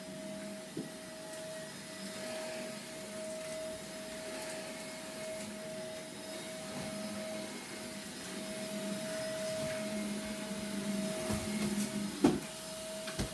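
A vacuum cleaner running steadily with a droning hum, and a single sharp knock a little after twelve seconds in.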